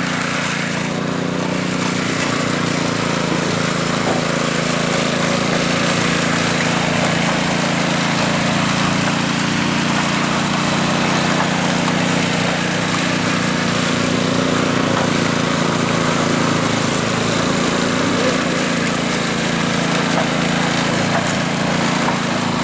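Power trowel's small engine running steadily at constant speed while it smooths concrete, with a steady hiss over the engine note.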